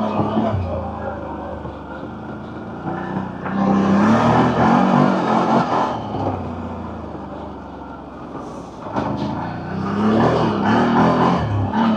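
CFMoto CForce 1000 Overland ATV's V-twin engine running on the trail, surging louder twice for a couple of seconds each with its pitch rising and falling as the throttle is worked, between steadier stretches.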